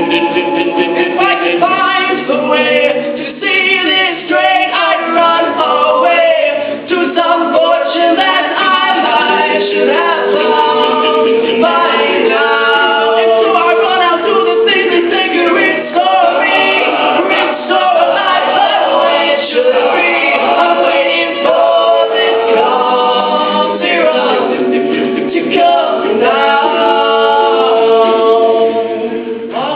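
A cappella vocal group singing in several-part harmony, voices only with no instruments, continuously and at full volume.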